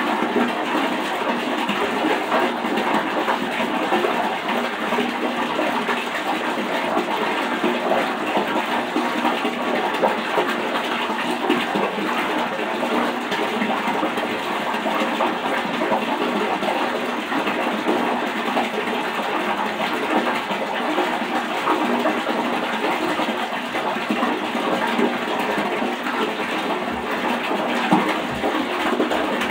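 Water running steadily from a bathroom tap into a sink as it fills, a continuous even rush.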